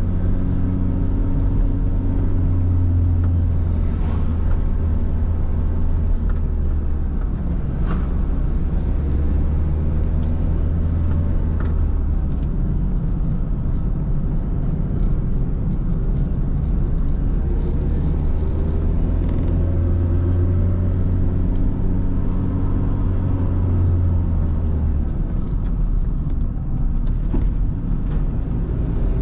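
Car driving, with a steady low rumble of engine and road noise; the engine note rises and falls several times.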